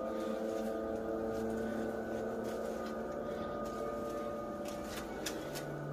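A steady droning hum made of several held tones, with a few faint clicks scattered through it.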